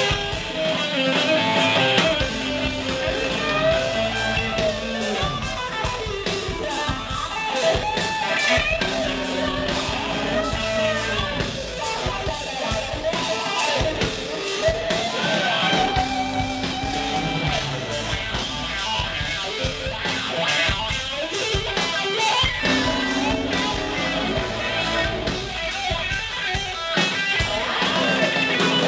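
Live rock band playing: electric guitars over bass and drums, heard through the PA from within the audience.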